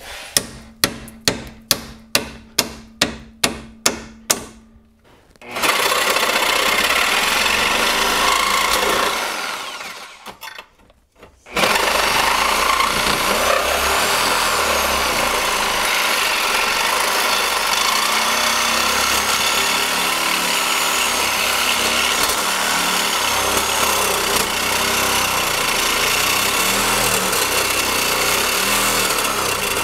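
About a dozen hammer blows on metal, roughly three a second, then a reciprocating saw cutting into the steel battery-tray frame of an EZGO TXT golf cart: one run of about four seconds, a short pause, then a long steady cut.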